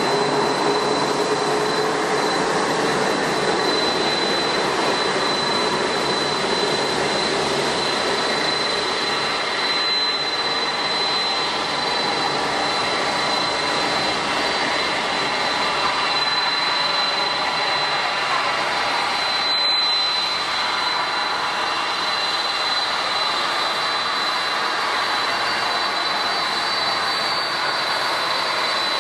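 Jet airliner's engines running steadily: an even rush with a high, steady whine over it.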